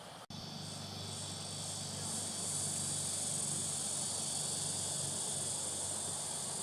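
A steady, high-pitched chorus of insects that swells up over the first couple of seconds and then holds, with a faint low hum beneath it.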